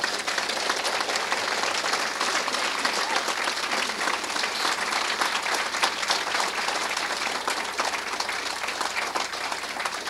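Audience applause: many people clapping together in a dense, steady patter.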